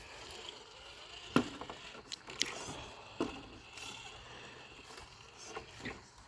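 GMADE RC rock crawler's electric motor and geared drivetrain running smoothly and quietly, with no portal gear reduction, with a few sharp clicks and knocks as it crawls.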